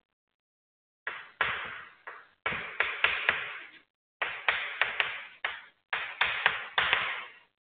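Chalk writing on a blackboard: a run of sharp taps and short scratching strokes that starts about a second in, with brief pauses between words.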